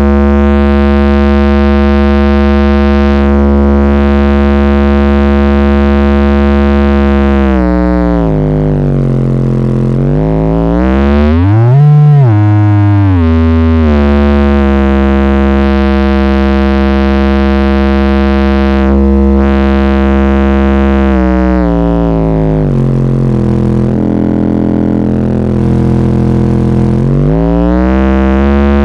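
Subwoofer playing a loud, distorted bass test tone from a tone generator. The pitch holds steady, then sweeps: it falls about 8 s in, rises to a peak around 12 s, falls again around 21 s and climbs back near the end.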